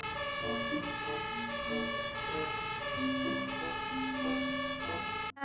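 A fire-engine siren sound, a pitched electronic wail stepping between tones every half second or so, which cuts off suddenly near the end.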